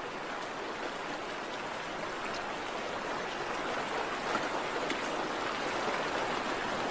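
Stream water rushing steadily over a salmon stream, growing slightly louder, with a couple of faint ticks about halfway through.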